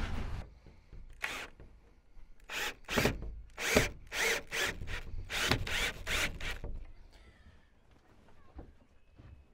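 Cordless drill driving a screw into a wooden framing board in about a dozen short bursts, then stopping.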